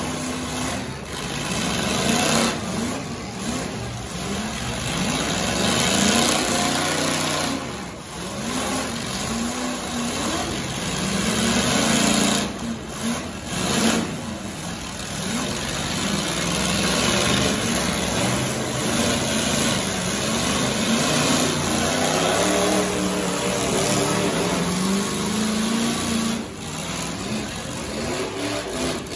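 Demolition derby truck engines revving over and over, their pitch rising and falling as the trucks push against each other.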